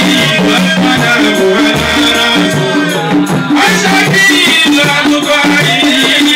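Large hand-held frame drums beaten in a steady, repeating rhythm, a lower and a higher drum tone alternating, with a man singing over them through a microphone.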